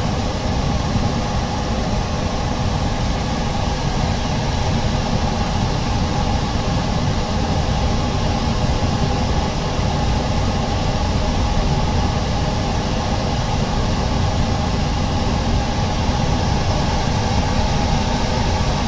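Steady mechanical drone, even in level and pitch, with a few constant hum tones over a noisy rush.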